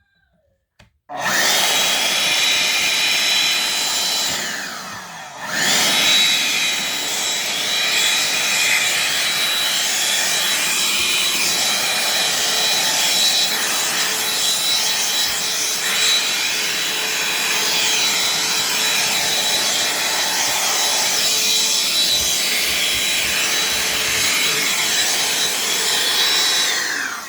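Vacuum cleaner switched on about a second in, its motor running with a steady high whine while it sucks up crushed Ritz cracker crumbs. About four seconds in the motor winds down and at once spins back up, and near the end it winds down as it is switched off.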